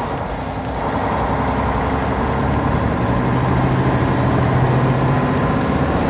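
Truck engine running steadily with a faint high whine, growing a little louder about a second in.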